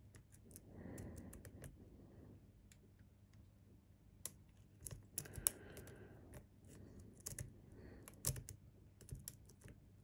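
Hook pick and tension wrench working inside a cylinder lock's keyway: irregular small metallic clicks and light scraping as the pins are picked, the sharpest clicks about five and a half and eight seconds in.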